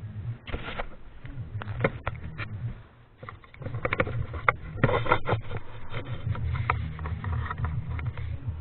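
Irregular scraping, rubbing and small clicks of hands and tools working on the parts of a Remington Noiseless 6 typewriter, busiest about halfway through, over a low rumble.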